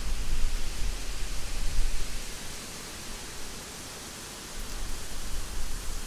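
Steady hiss of rain falling in a forest, with a low rumble under it that is strong for the first two seconds, drops away in the middle and swells again near the end.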